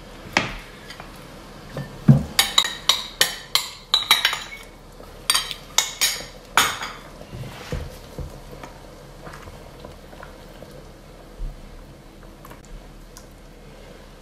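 A spatula clinking and scraping against a steel wok while a thickening sauce is stirred: two quick runs of sharp clinks between about two and seven seconds in, then only faint stirring.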